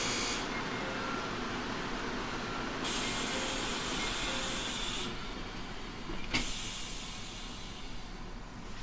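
Cabin noise inside a JR Central 313 series 5000 subseries electric train: a steady hiss whose upper part cuts out and comes back twice, with a single sharp click about six seconds in.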